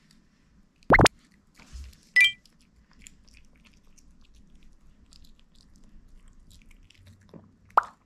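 A toy poodle chewing quietly. Two short sharp pops, about a second in and near the end, and a brief high squeak at about two seconds stand out.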